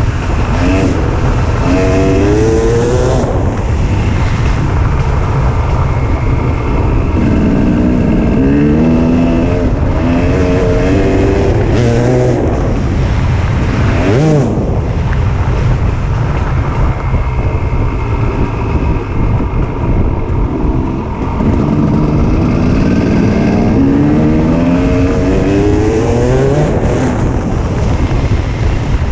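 Enduro dirt bike engine revving as it rides, its pitch climbing in repeated rising sweeps and dropping back between them, over a heavy low rumble.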